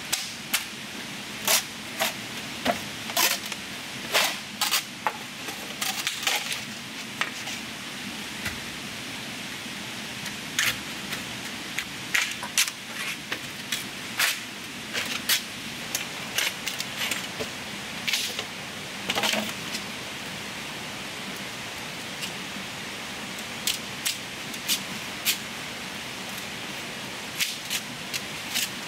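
Irregular sharp clicks and snaps, about one or two a second and sometimes in quick clusters, over a steady hiss.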